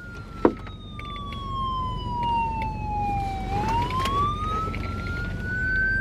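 Recorded police siren wailing, its single tone falling slowly in pitch for about three and a half seconds and then rising back up. A brief knock sounds about half a second in.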